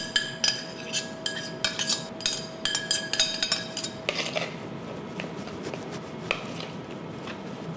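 A metal spoon scraping and knocking against a stainless steel saucepan, a quick run of clinks that ring briefly, for about four seconds. After that, softer spoon strokes stirring minced meat in a bowl, with only a few light clicks.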